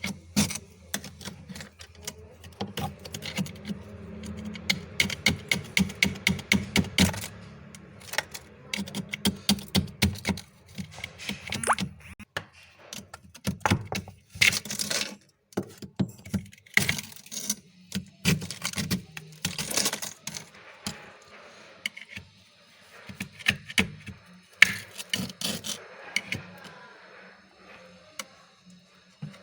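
Close-miked crunching of freezer frost being bitten and chewed: a fast run of sharp, crisp crunches, about three to four a second through the first third, then irregular crunches broken by brief pauses.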